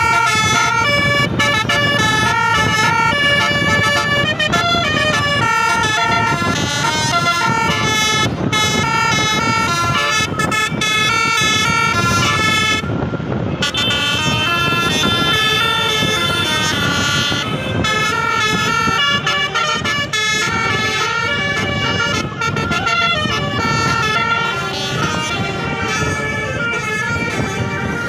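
Tour bus's multi-tone telolet air horn (Basuri type) playing a fast tune of stepped notes, over a steady rumble from the bus and road.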